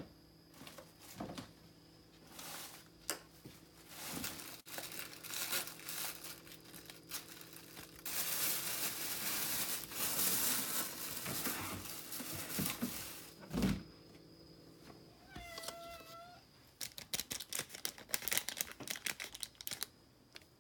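Plastic Ciao Churu cat-treat tubes crinkling and tearing open, the loudest stretch in the middle. A cat meows once shortly after, and a run of quick clicks follows near the end.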